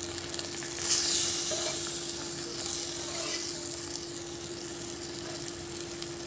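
Thick mung dal with Malabar spinach stalks bubbling and sizzling in a hot kadai as a spatula stirs it. The sizzle jumps up sharply about a second in, then slowly dies down. A steady low hum runs underneath.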